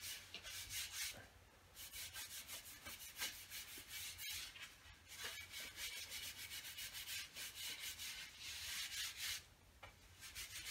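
Cotton cloth rubbed hard back and forth over the oiled blade of a wooden canoe paddle in quick hissing strokes, buffing off the excess oil. The rubbing pauses briefly about a second in and again near the end.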